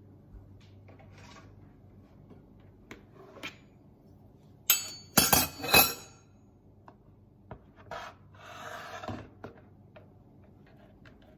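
Kitchen handling sounds: a few sharp knocks about five seconds in as a plastic mixing bowl is set down on a wooden cutting board, then a rubbing scrape lasting just over a second, with scattered light clicks.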